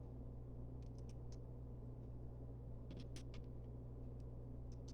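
Faint, light clicks of plastic Lego bricks being handled and pressed together, in a few small clusters, over a steady low hum.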